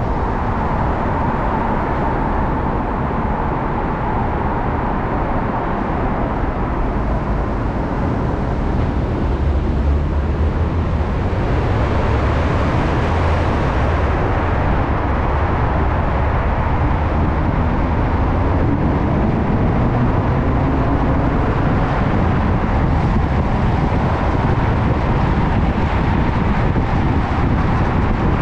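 Steady road noise from a car driving through a covered lower-level roadway: tyre and engine noise with surrounding traffic.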